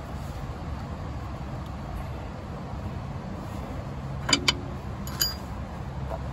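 Steady low rumble in the background, with two sharp metallic clinks a fraction of a second apart about four seconds in and a lighter one a moment later, as steel front-suspension parts (steering knuckle and lower ball joint) are handled.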